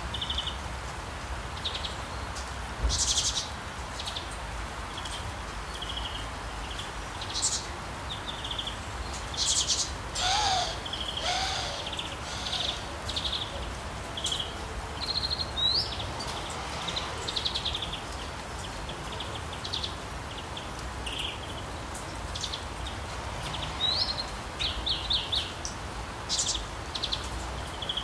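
Several birds chirping and calling, many short high calls scattered throughout, over a steady hiss of rain; a lower call with several overtones comes about ten seconds in.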